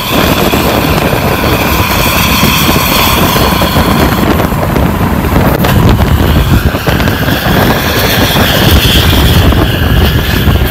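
ANS bus's loud 'srigala' aftermarket exhaust running under load: a deep rumble beneath a high whine, with a new, higher whine coming in about two-thirds of the way through.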